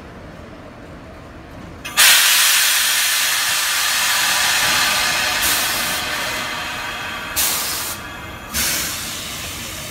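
Compressed air hissing from a Class 483 ex-1938 tube stock train's pneumatic system. A sudden loud hiss about two seconds in fades slowly, and three shorter hisses follow.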